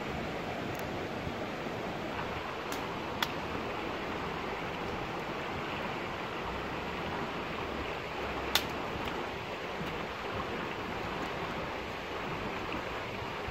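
Steady rush of a shallow stream running over rocks, with two sharp clicks about three seconds in and again about eight and a half seconds in.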